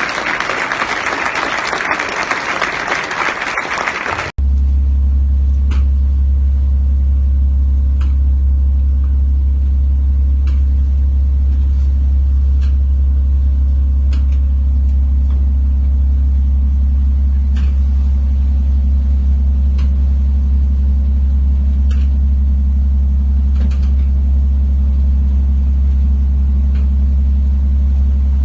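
Audience applauding for about four seconds, then an abrupt cut to the steady, loud, low drone of an engine running, with a few faint ticks over it.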